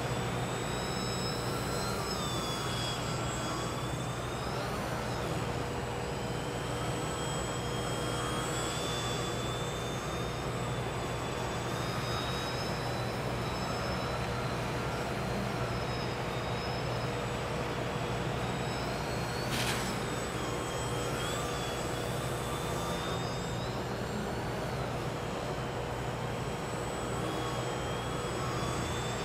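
Electric motor and propeller of a scratch-built EPP foam Yak RC plane whining, its pitch rising and falling again and again as the throttle is worked, over a steady low hum. A single sharp click about twenty seconds in.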